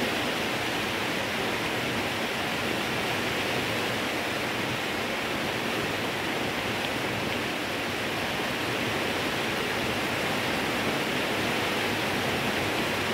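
Steady hiss of heavy rain, loud and unbroken.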